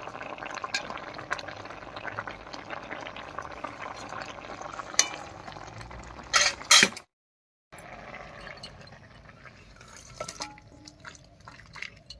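Pumpkin greens, potato and jackfruit seeds simmering in liquid in a steaming wok, bubbling, while a spatula stirs and scrapes against the pan. A few louder clinks of the spatula come just past the middle, the sound drops out for a moment, and the rest is quieter, with scattered clinks.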